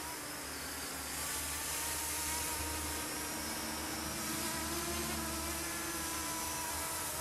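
Mini tricopter's electric motors and propellers buzzing in flight, their pitch drifting slowly up and down with the throttle, rising a little around the middle.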